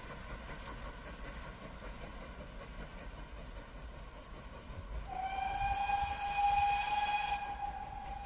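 A distant heritage train's locomotive sounds one long whistle about five seconds in: a single steady high note that slides up slightly as it starts, then thins and fades after a couple of seconds. Wind rumble on the microphone lies underneath.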